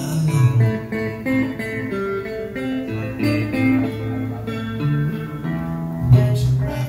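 Guitar music: a run of plucked, held notes changing in pitch.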